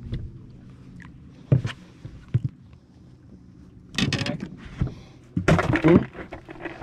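Plastic cooler on a boat deck being handled as a caught fish is stowed: a few sharp knocks, then two louder clattering bursts of the lid and latch in the second half.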